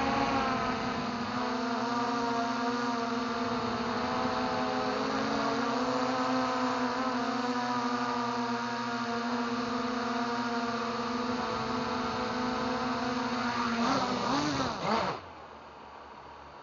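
Small radio-controlled aircraft's electric motors and propellers heard from its onboard camera: a steady buzzing whine. Near the end the whine wavers and then cuts off suddenly as the craft comes down in the grass, leaving only a faint hiss.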